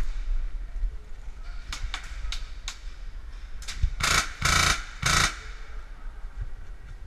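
Airsoft guns firing: a few sharp single shots, then three short, louder full-auto bursts between about four and five seconds in.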